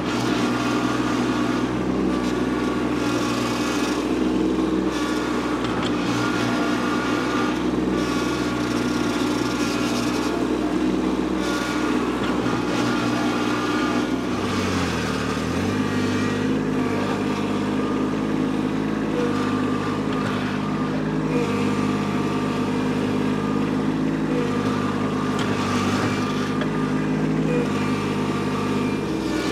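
Kubota B2601 compact tractor's three-cylinder diesel engine running steadily under load while its front loader bucket digs into a stump's roots. The engine note dips sharply for a moment about halfway through, then recovers.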